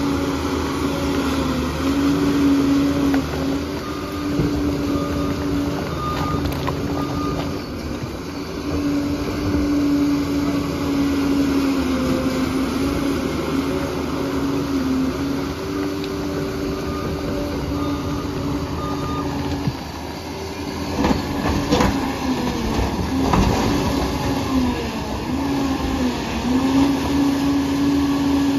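Liebherr PR 746 crawler dozer's diesel engine running under changing load, its pitch dipping and recovering as it works, over a clatter of the steel tracks. A few sharp knocks come about three-quarters of the way through.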